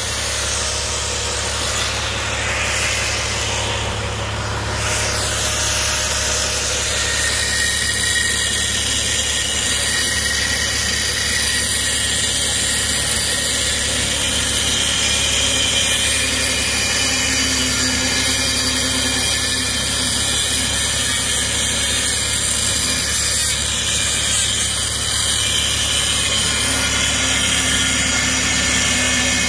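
Angle grinder with a cut-off wheel running steadily and cutting into a flatbed trailer's metal strap winch (ratchet), a continuous high whine with grinding.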